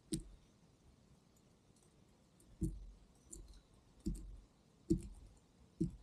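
European robin pecking at a fat-filled coconut-shell feeder: about six short, sharp taps at irregular intervals.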